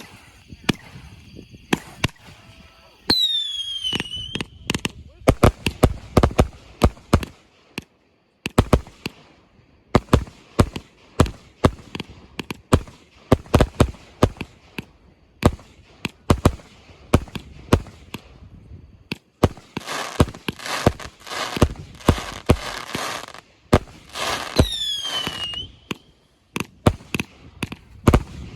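Consumer aerial fireworks going off in a long barrage: a string of sharp bangs, with a whistle that falls in pitch about 3 seconds in and again near the end, and a dense stretch of crackling about two-thirds of the way through.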